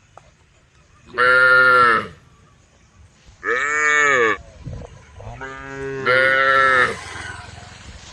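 Cattle mooing: three loud moos, each about a second long, with the last a little longer.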